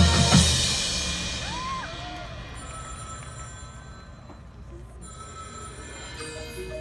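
Marching band front-ensemble percussion: a loud cymbal crash with a drum hit at the start, ringing out and fading over the first couple of seconds, then soft sustained high metallic ringing. Mallet-keyboard notes enter near the end.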